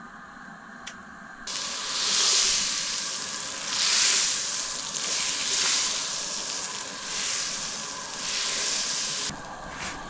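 Butter sizzling and foaming in a hot frying pan. It starts abruptly about a second and a half in, swells and eases several times, and cuts off shortly before the end.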